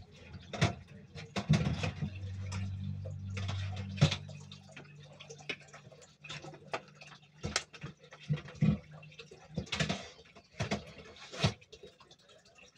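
Scattered clicks and taps of a spoon against the batter bowl and the nonstick plates of an electric corn-dog waffle maker as batter is spooned in, with the clunk of its lid being shut. A low hum runs underneath for the first half.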